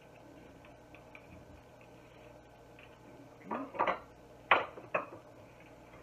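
Wire whisk stirring batter in a glass mixing bowl: faint light ticks at first, then several sharp clinks and knocks against the glass in the second half, the loudest about four and a half seconds in.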